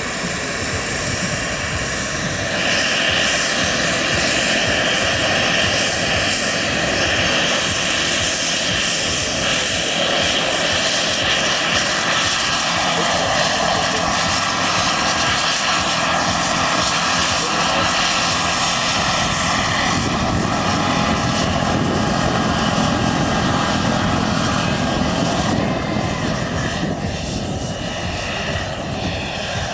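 Large radio-controlled scale Eurocopter EC 120 model helicopter running at flight speed, lifting off and hovering: steady rotor noise with a thin, high whine. It gets somewhat quieter near the end.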